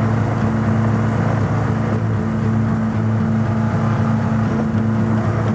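BMW Rockster's boxer-twin engine running at a steady cruising speed, an even drone mixed with wind and road noise.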